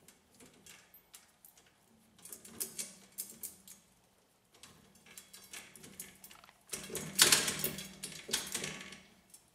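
White metal pet gate rattling and clicking in irregular bursts as an Italian Greyhound noses and pulls at its bottom edge, the loudest clatter about seven seconds in. The gate's hinge joint has a lot of play, so it shifts under the dog's pulling.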